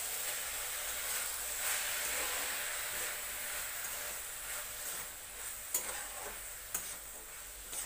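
Chopped vegetables and tomato sizzling in ghee in a kadai while a steel spatula stirs them. The sizzle slowly quiets, and a few sharp clicks of the spatula against the pan come in the second half.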